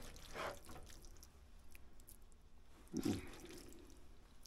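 Saucy spaghetti being spooned from a frying pan into a ceramic bowl: faint wet squelches of the noodles and sauce, with a louder dull thump about three seconds in.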